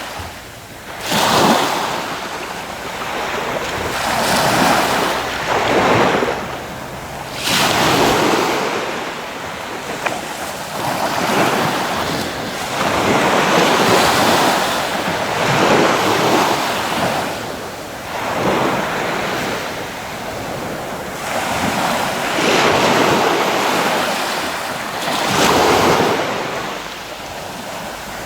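Sea waves breaking and washing ashore, the surf swelling and falling back every two to three seconds.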